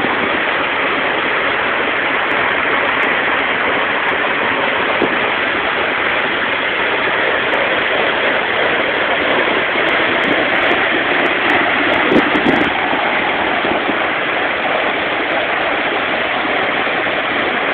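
A 39 m waterfall's falling water rushing loudly and steadily, heard through a phone microphone that makes it sound dull and cut off above the middle highs.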